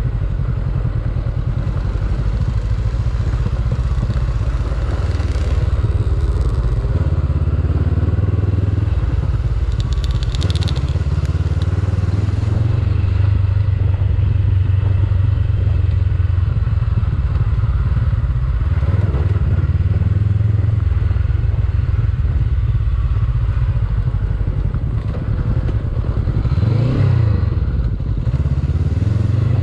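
2021 Honda CB500X's 471 cc parallel-twin engine running steadily as the bike is ridden over a rough dirt track. The engine note rises and falls briefly near the end.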